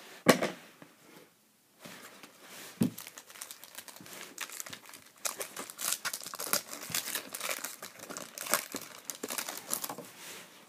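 A shiny foil baseball-card pack wrapper being torn open and crinkled by hand, in a long run of crackling rustle. Just after the start there is one sharp knock.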